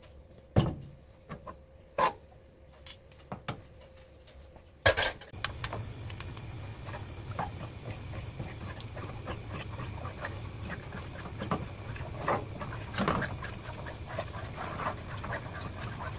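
Metal measuring spoons clinking against a nonstick wok a few times, then a loud knock about five seconds in. After the knock a steady low hum starts, under repeated scraping and tapping as a spoon and wooden spatula stir thick chili-paste seasoning sauce in the pan.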